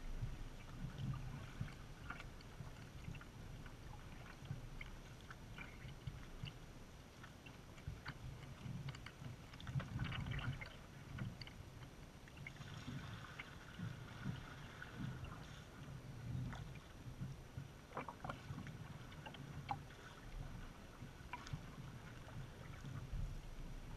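Kayak being paddled on calm water: paddle blades dipping with small splashes and drips, over soft, irregular low thumps.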